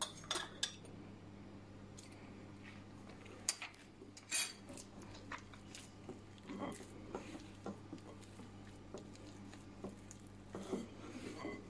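Hands mixing and pressing crumbly pastry dough in a glass bowl, with quiet scattered rustles and a few light clinks of a metal spoon and the glass bowl, the sharpest just after the start and around four seconds in.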